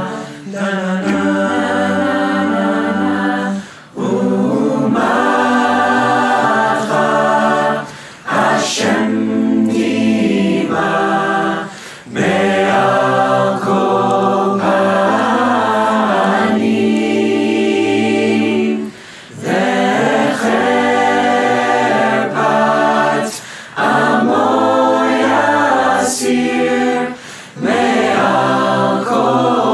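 Virtual choir of men's and women's voices singing a cappella in full harmony, long held chords in phrases of a few seconds each, with brief breaks between phrases.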